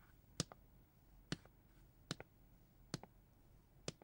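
Faint footsteps on a hard floor or stairs: sharp clicks about one a second, several of them doubled by a quick second click.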